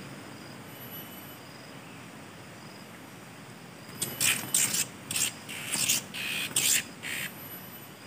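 Dry leaves and palm fronds rustling and crackling in about six short bursts, starting about halfway through, as hands work on the ground. A faint high insect trill comes and goes behind it.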